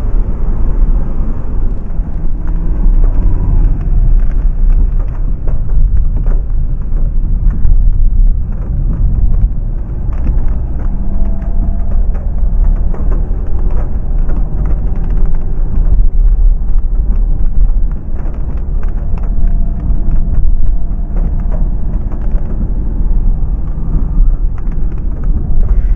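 Inside a Renault Mégane 1.5 dCi four-cylinder turbodiesel car on the move: a steady low rumble of engine and tyres on a wet road.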